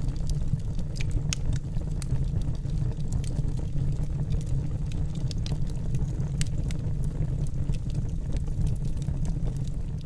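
Wood fire crackling under a cast-iron pot, with many sharp pops and snaps over a steady low rumble.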